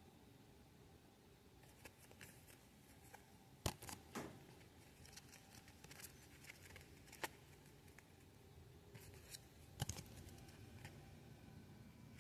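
Pokémon trading cards being handled and flipped through: faint, quiet rustling with a few sharp card snaps and taps, the loudest a little under four seconds in and again near ten seconds.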